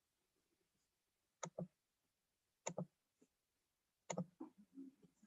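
Computer mouse clicking: three pairs of quick light clicks, about a second and a quarter apart.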